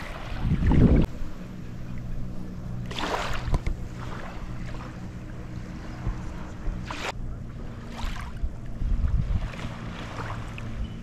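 Small waves lapping and washing onto a sandy shore in short swooshes, with wind buffeting the microphone about a second in and a faint steady low hum underneath.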